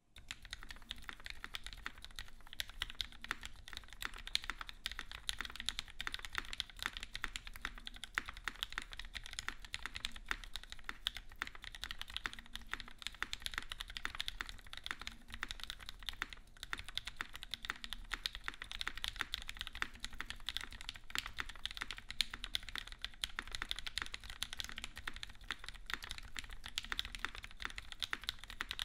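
Continuous fast typing on a custom mechanical keyboard, a zekk.works Yeji with an aluminum case and full aluminum plate, fitted with lubed Gateron Black Ink linear switches and GMK doubleshot ABS keycaps. A dense stream of sharp key clacks begins at once and carries on without a break.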